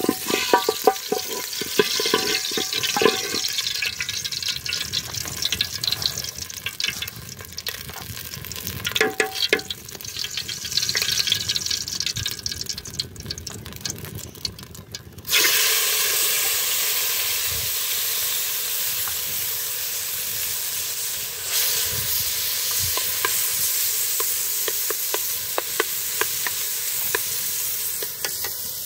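A metal utensil clinking and scraping irregularly in a pot, then about halfway through a loud, steady sizzle starts suddenly: food frying in hot oil.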